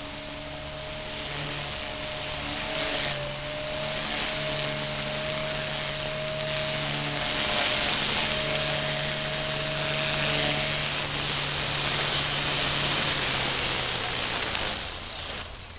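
Radio-controlled model helicopter flying in close and landing: a steady high-pitched whine from its motor and rotors that grows louder, then falls in pitch and fades as the rotors spin down near the end.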